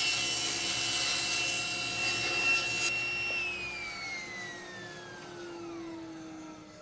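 Table saw cutting through a veneered plywood panel edged in walnut, the blade running steadily. About three seconds in the cut ends, and the saw's motor winds down with a whine falling in pitch as the blade coasts to a stop.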